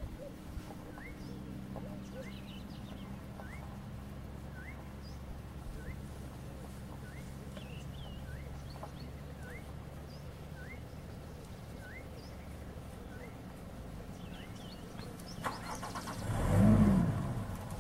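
A vehicle engine idling as a low steady hum, which stops about two thirds of the way through, while a bird repeats a short rising call about once a second. Near the end, a loud low sound rises and then falls in pitch over about a second and a half.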